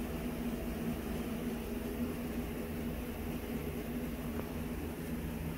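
A steady machine hum: a low drone holding one pitch over a faint rumble, unchanging throughout.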